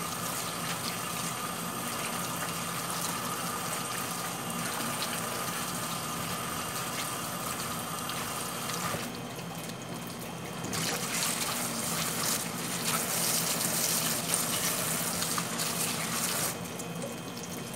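Kitchen faucet running onto a sink full of small green citrus fruits as they are rinsed by hand, water splashing over the fruit and hands. The splashing grows louder for several seconds past the middle.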